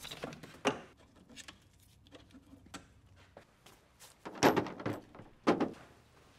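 Knocks and clatter of tools and metal being handled, with a cluster of louder thunks and clanks about four and a half to five and a half seconds in.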